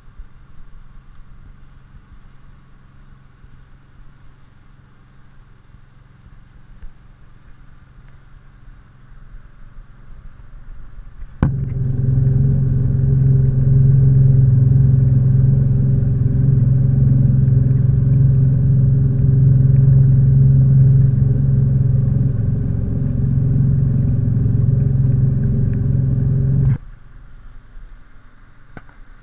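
Boat's outboard motor running steadily under way, a low, even drone with water and hull noise. It jumps suddenly to a much louder level about a third of the way in and drops back just as suddenly near the end.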